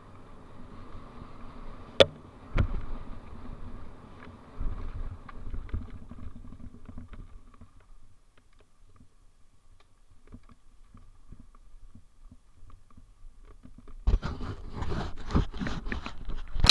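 Rattles and knocks of a bike-mounted camera jolting over a rough dirt trail, with two sharp knocks about two seconds in. Near the end come louder scraping and thumps as a hand handles the camera.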